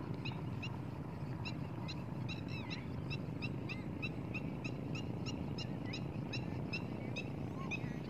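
Birds calling in a long, steady series of short, high notes, about three a second, over a steady low background noise.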